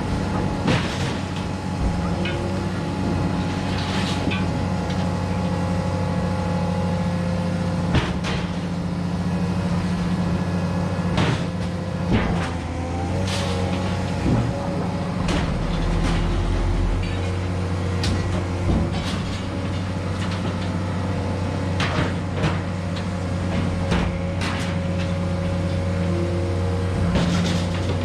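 Engine running steadily, with frequent sharp knocks and clanks over it throughout.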